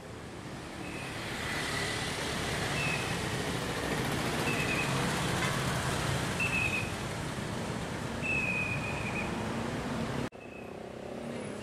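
Street traffic with motor scooters riding past close by, their small engines running over a steady traffic hum. A short high note repeats about every two seconds. The sound drops suddenly near the end.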